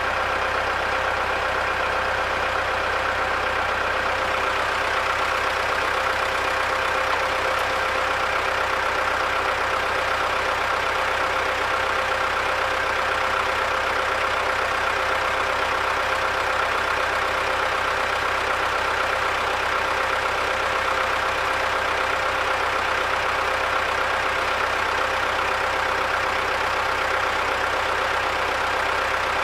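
ZIL 'Bychok' truck's diesel engine idling steadily, running to supply compressed air from its air system.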